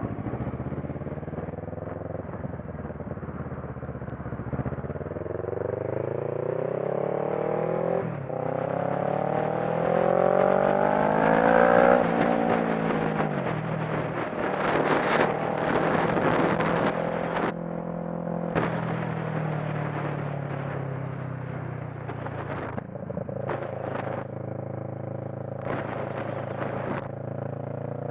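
Motorcycle engine pulling away through the gears. Its pitch rises, dips at a shift about eight seconds in, climbs again and drops at another shift about twelve seconds in, then holds steady at cruising speed. From the middle on, bursts of rushing wind buffet the microphone.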